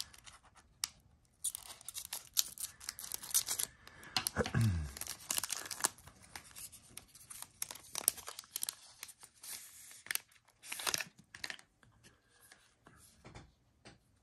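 Foil wrapper of a trading card pack being cut and torn open, crinkling and rustling in bursts over the first several seconds. This is followed by softer rustling and light clicks as the stack of cards is slid out and handled.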